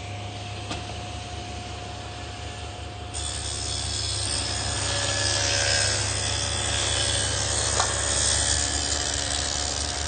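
Table saw fitted with an adjustable dado head, running steadily with a hum. About three seconds in, it starts cutting a groove along a pine leg, and the louder cutting noise goes on to the end.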